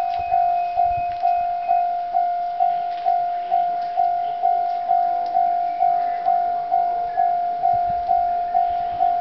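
Japanese level-crossing electronic warning bell ringing, a little over two dings a second, each ding dying away before the next: the crossing signal for an approaching train.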